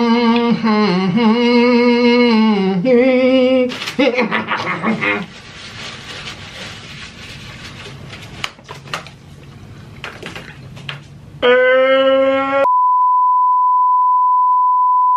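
A person's long, drawn-out voiced sound, then quieter clicking mouth noises of eating. About twelve seconds in, a steady 1 kHz test-pattern tone cuts in sharply and holds, the classic colour-bars 'technical difficulties' beep used as an edit gag.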